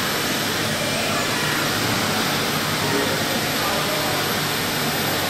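Large gantry CNC machining centre running, a steady mechanical whir as its spindle head travels along the gantry, with a thin high whine coming in about a second and a half in.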